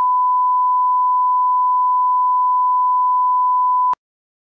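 Steady 1 kHz reference test tone, the line-up tone that goes with colour bars. It holds one pitch and cuts off abruptly about four seconds in.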